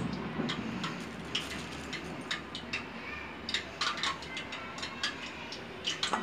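Small kitchen knife cutting and lifting strips of thick rolled maize-flour dough on a plastic sheet: irregular light clicks and rustles, with a louder knock near the end.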